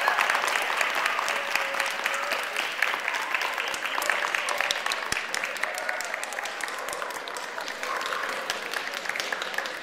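Audience applauding steadily, a dense patter of many hands clapping with a few voices mixed in. It eases a little past the middle and picks up again near the end.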